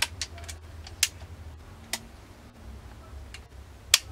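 Sharp metallic clicks of a Marlin 1894 lever-action rifle's action being worked by hand: a few separate clicks, the loudest at the start and another just before the end, with fainter ones in between.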